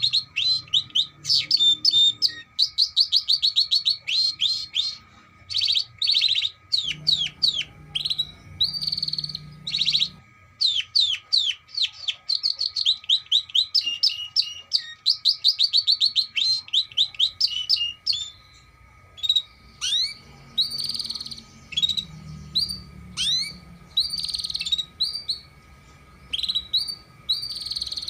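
Domestic canary singing: long phrases of rapid, high repeated notes and trills, broken by short pauses.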